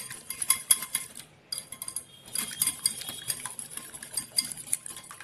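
Metal wire whisk beating eggs in a glass tumbler, its wires clinking against the glass in a rapid run of clicks, pausing briefly about a second in.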